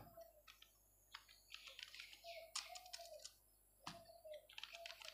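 Faint typing on a computer keyboard: scattered key clicks in short runs.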